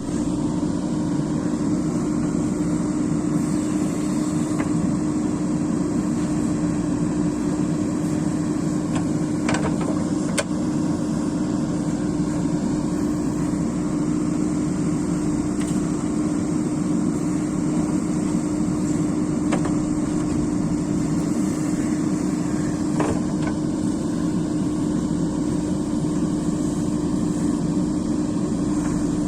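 JCB excavator's diesel engine running steadily at a constant pitch, with a few faint knocks from the machine's work.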